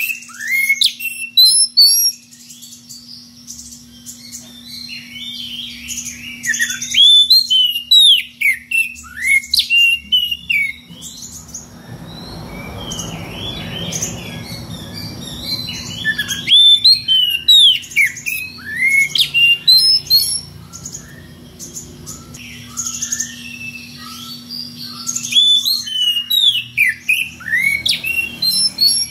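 Oriental magpie-robin (kacer) in full loud song: phrases of rapid, varied whistles and chattering notes sweeping up and down, separated by short pauses. A stretch of soft hiss-like noise falls in the middle.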